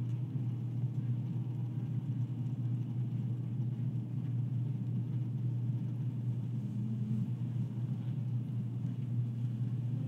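Honeybee colony hum recorded at a beehive and band-pass filtered on an iPhone equalizer centred at 250 Hz: a steady low hum that starts suddenly. It is fairly steady, with no warble of the kind an apidictor listens for as a sign of a coming swarm.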